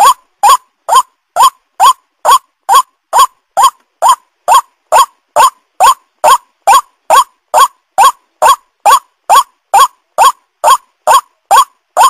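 White-breasted waterhen (ruak-ruak) calling: a short note that rises in pitch, repeated evenly about twice a second.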